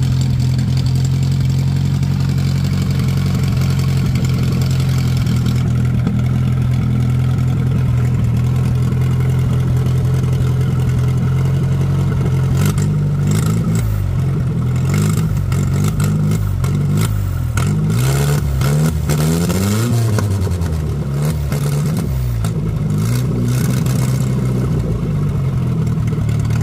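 Opel truck engine idling steadily, then revved up and down several times from about halfway through before settling back to idle near the end.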